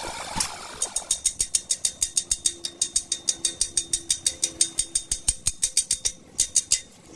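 Rapid, even metallic tapping, about seven ringing strikes a second, for some six seconds, then it stops.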